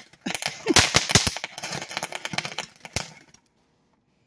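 Ground fountain firework spraying sparks with a rapid crackle of sharp pops, loudest about a second in, thinning out and stopping about three and a half seconds in as it burns out.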